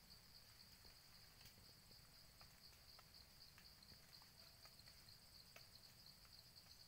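Near silence with a faint, steady high-pitched insect trill, cricket-like, and a few scattered faint ticks.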